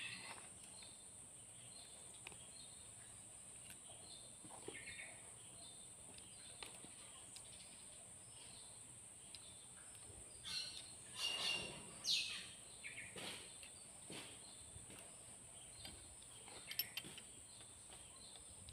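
Faint small metallic clicks and scrapes of a ring spanner and screwdriver on a diesel engine's rocker-arm adjusting screw and locknut while valve clearance is being set, bunched about ten to twelve seconds in and once more near the end.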